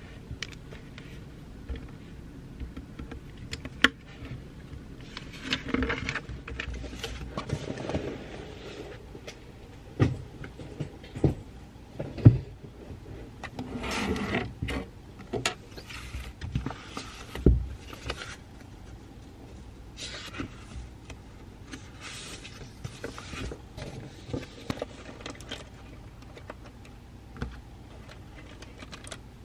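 Pencil writing on paper at a desk: scratching strokes with scattered light taps and knocks, and a few longer rustling stretches of paper.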